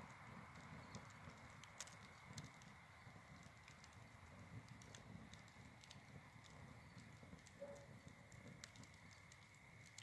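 Wood fire in a metal fire pit crackling faintly, with scattered irregular pops.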